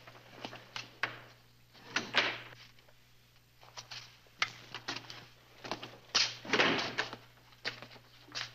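Footsteps on a hard floor and a door being opened and shut, with the loudest thump about six to seven seconds in, over a steady low hum.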